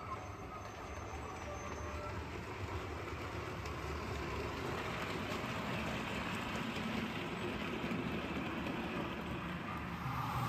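OO gauge model diesel locomotive running along the layout track, a steady low running sound that grows gradually louder as it approaches.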